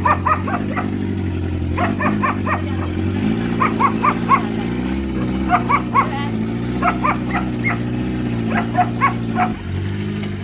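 A dog barking over and over in quick runs of short barks, over a steadily running engine. The engine's note shifts about three seconds in and cuts out near the end.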